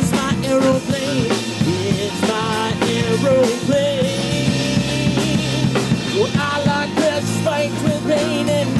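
Live rock trio of electric guitar, electric bass and drum kit playing an instrumental funk-rock section, the electric guitar taking a lead line with bent, wavering notes over a steady bass and drum groove.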